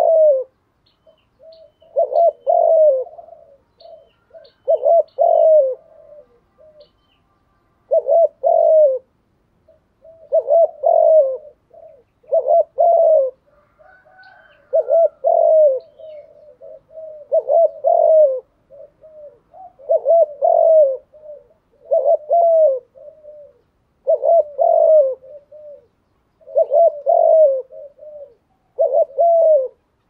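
Spotted dove cooing its song over and over, a short phrase of a few coos about every two to two and a half seconds.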